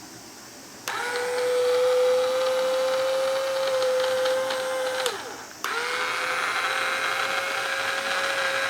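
Koshin GT-3S battery-powered sprayer's pump motor switched on and running with a steady whine, switched off about five seconds in so that it winds down, then switched on again and running on.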